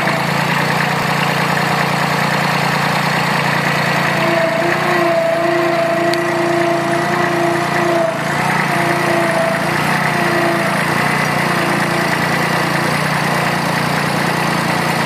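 Kubota B6200 compact tractor's three-cylinder diesel engine running steadily as the tractor drives, dragging a rear blade over dirt, with a high steady whine over it through the middle.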